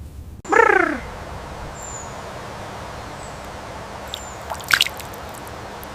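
A short animal cry that slides downward in pitch, about half a second long, just after the start. It is followed by a steady background hiss with a few faint high bird chirps and a brief sharp crackle near the end.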